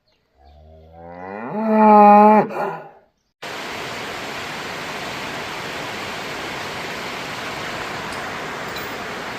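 A cow moos once, a long call that rises in pitch and then holds steady before breaking off. About three and a half seconds in, the sound cuts abruptly to a steady, even rushing noise.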